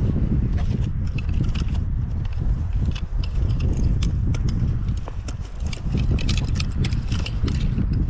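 Wind buffeting the microphone in a steady low rumble, with many small sharp clicks and rattles scattered over it.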